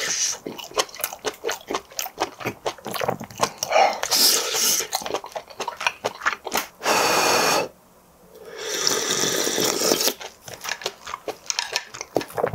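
Close-miked wet chewing of shellfish meat: rapid squishy, smacking clicks from the mouth. About seven seconds in comes a loud rushing noise lasting about a second, then a brief hush and a second swelling rush, before the chewing clicks resume.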